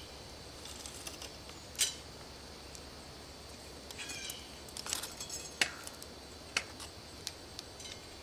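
Old bicycle chain clinking and clicking in light, irregular bursts as it is pulled out through the drivetrain after being split open at the master link. The sharpest clink comes about two seconds in.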